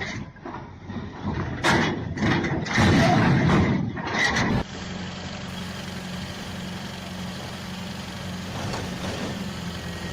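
Several loud, rough noises, each under a second, then a sudden cut to a heavy diesel engine of a truck or construction machine running steadily at idle.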